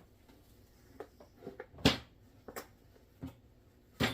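About six short, separate knocks and thumps, the loudest near the middle, as bread dough is taken from its bowl and handled on a floured table.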